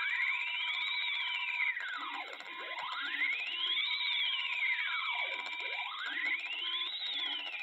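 Synthesized audio from the Sulfoxide.exe malware playing through a laptop's speakers: a tone that glides up and back down in slow arches, three times, roughly once every three seconds, over steady higher tones.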